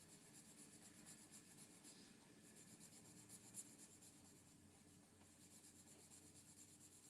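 Faint scratching of a watercolor pencil coloring on cardstock, in quick repeated strokes.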